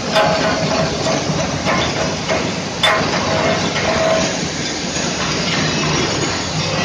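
Stick-electrode welding arc burning on a large steel pipe: a steady crackling hiss with scattered pops, one sharper pop about three seconds in.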